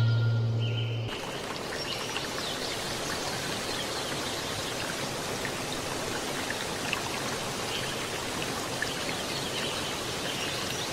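The last held note of the background music fades out about a second in, leaving a steady rush of running water, like a stream.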